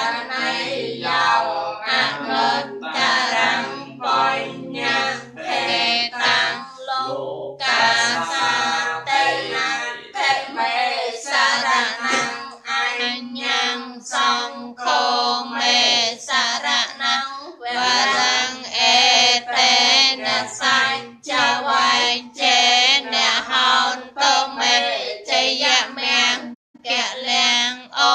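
Voices singing a Buddhist devotional chant in a continuous melodic recitation, with a steady low tone beneath. The singing pauses briefly twice.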